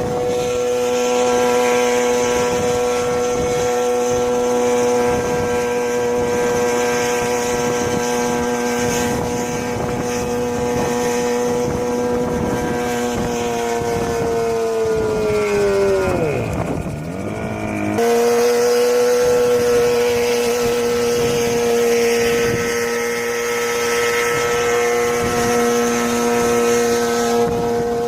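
Small engine of a homemade helicopter running at a steady high speed with a droning hum. About 14 seconds in the pitch sinks sharply as the engine slows, then it cuts abruptly back to the steady high hum.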